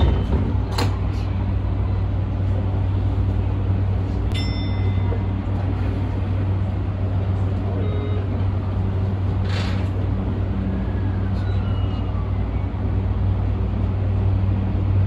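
Tokyu 2020-series subway train standing at the platform, heard from the cab: a steady low electrical hum. Over the hum are a click about a second in, a click with a short beep about four seconds in, and a brief hiss of air near ten seconds in.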